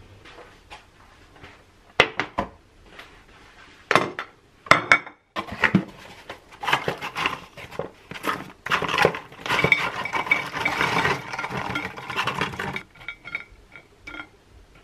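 Leftover chips tipped out of a paper bag onto a ceramic plate. A few sharp knocks and clinks come first, then several seconds of paper crackling and chips rattling onto the plate, ending in a few light clicks as they are spread by hand.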